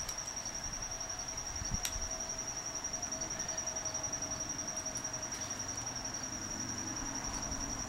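An insect trilling in a steady, rapidly pulsed high tone, with one sharp click about two seconds in as the starter solenoid's parts are handled.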